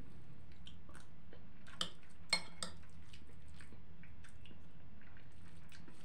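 Eating buckwheat: a spoon clinking and scraping against a plate, with a few sharp clinks around two seconds in, amid quiet chewing.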